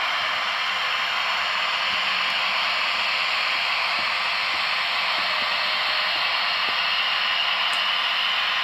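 Steady hiss from the sound decoders of the model electric locomotives, played through their small on-board speakers, with no bass and a few faint ticks in the middle.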